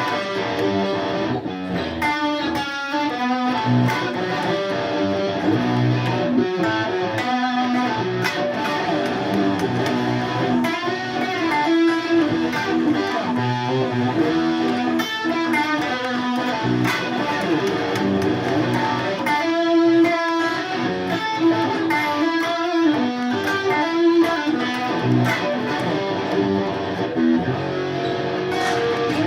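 Guitar playing an instrumental passage of plucked and strummed notes.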